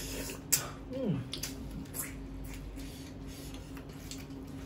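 Close-up hand-eating sounds: chewing and lip smacks, with fingers squishing rice against a plate, and a few short sharp clicks. A brief falling vocal sound comes about a second in.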